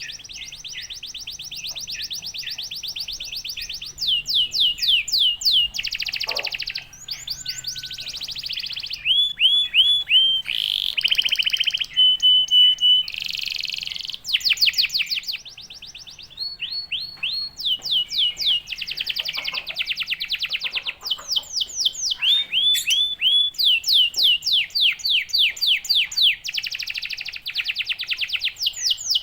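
Domestic canary singing continuously: long, fast trills alternating with rapid runs of repeated downward-sweeping notes, plus one brief steady whistled note midway.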